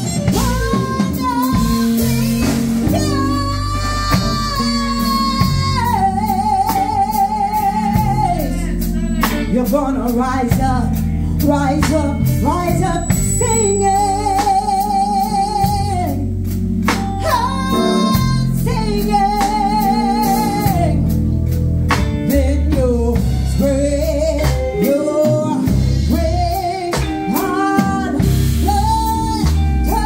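A woman singing live into a microphone with a band of electric guitar and drum kit, holding several long notes with a wide vibrato.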